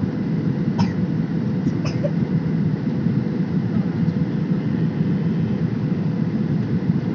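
Steady low drone of the jet engines and rushing airflow heard inside the cabin of a Boeing 737 airliner in flight, with a couple of faint short clicks about one and two seconds in.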